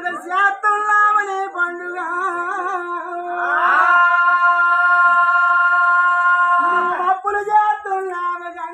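A voice singing a Telugu folk ballad melody, wavering and ornamented, then holding one long steady note for about three seconds before going on with the line.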